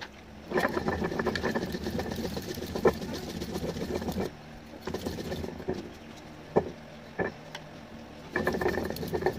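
Stone muller ground back and forth on a flat stone grinding slab (shil-nora): a gritty stone-on-stone rasping that stops a little after four seconds, gives way to two sharp knocks, and starts again near the end.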